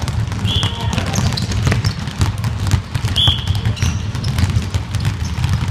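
Many basketballs being dribbled at once on a sports hall floor, a dense, continuous patter of overlapping bounces. Two short high sneaker squeaks cut through, about half a second and three seconds in.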